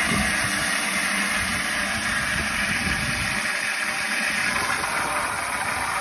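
Garden hose spray nozzle jetting water into a plastic watering can partly full of water: a steady hiss and splash as the can fills.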